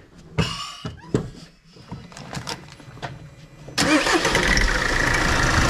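A few clicks and knocks, then about four seconds in a Mercedes Vito W639 van's engine starts and runs with a loud clatter from the A/C compressor. The clatter comes from the compressor pulley's worn-out damper (Ruckdämpfer).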